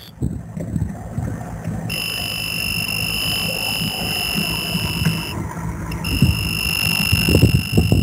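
Testo 755-2 meter's built-in beeper sounding a steady, high-pitched beep while its leads are on two live line-side legs of a three-phase contactor during a phase rotation test. The beep starts about two seconds in, breaks off briefly a little past the middle, then resumes. A low hum and a few handling knocks lie underneath.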